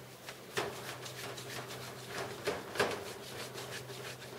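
Palm of a hand wiping an inked copper engraving plate dressed with whiting, in quick repeated brushing strokes to lift the plate tone before printing; a few sharper strokes about half a second in and near three seconds.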